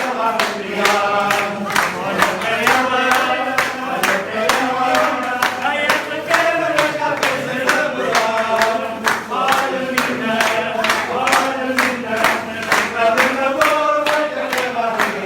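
Folk dance music: a group of voices singing together over a steady, regular percussion beat.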